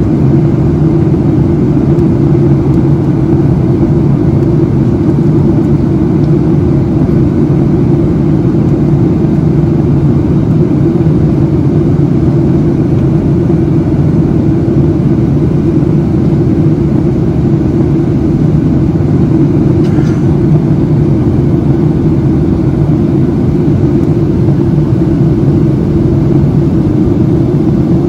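Steady cabin noise inside a Boeing 737-700 in flight, heard from a forward window seat: an even rush with a constant low hum that does not change. A faint brief tone sounds about twenty seconds in.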